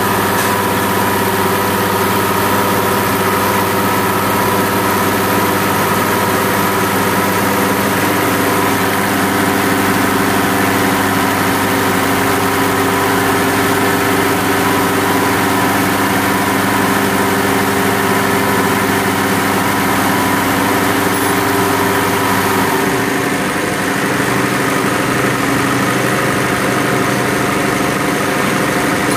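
Diesel injection pump test bench running steadily, its drive spinning a 6D16 injection pump with a dense machine hum of several steady tones. After about twenty seconds the hum shifts to a lower, changed set of tones as the running speed changes.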